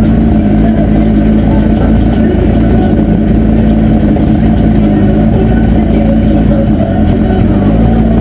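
Heavily modified, turbocharged five-cylinder engine of an Audi S2 drag car running steadily without revving, heard loud from inside the stripped, roll-caged cabin.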